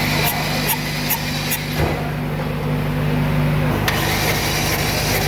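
Toyota 4E 1.3-litre four-cylinder petrol engine running with an abnormal knock, several sharp knocks in the first two seconds and another near the end, which the mechanic puts down to a worn crankshaft main bearing.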